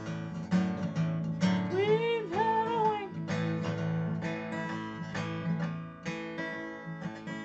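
Acoustic guitar strummed in a steady chord rhythm, with a short sung phrase about two seconds in.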